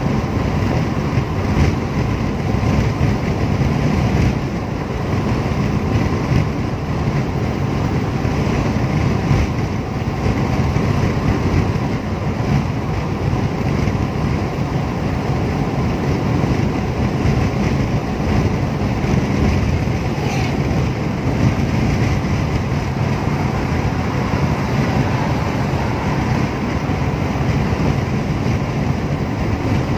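Steady road noise inside a moving car's cabin at highway speed: tyres on the pavement and the engine running, with a low, even rumble.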